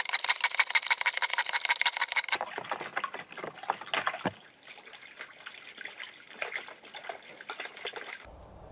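Water pouring and splashing through a plastic Aqua Play water-channel toy, loud for the first two seconds or so and then easing to a quieter trickle and splash.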